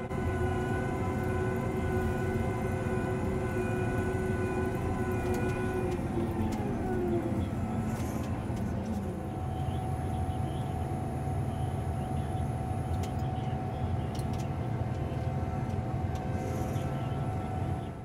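John Deere S660 combine running, heard from inside the cab: a steady machine hum with a low rumble and several whining tones. About six seconds in one whine falls in pitch, and a higher steady whine carries on after it.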